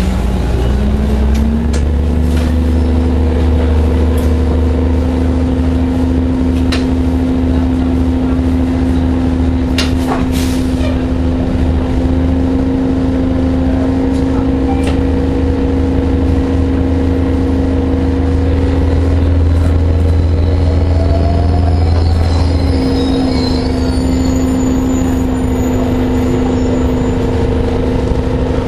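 Orion VII (07.501) low-floor hybrid transit bus running, a steady drone with two held tones that step up slightly about a second in. The deepest part of the drone drops away about 23 seconds in, and a few sharp clicks and knocks come around the middle.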